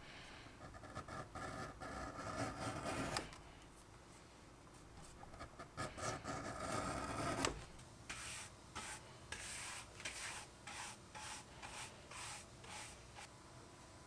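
Edge beveler shaving the edge of a piece of leather in two scraping passes a few seconds each, followed by a run of short, brisk rubbing strokes, about two a second.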